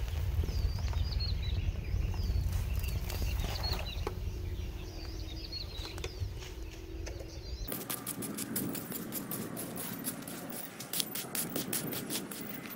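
Wind rumbling on the microphone, with small birds chirping repeatedly. About two-thirds of the way in it cuts to a small hand hoe scraping and chopping through gravel in many quick strokes, raking gravel over a smouldering fire pit.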